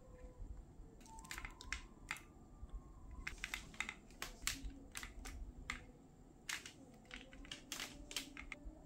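Binoculars and a binocular tripod adapter being handled: a string of irregular sharp clicks and taps, plastic and metal parts knocking together.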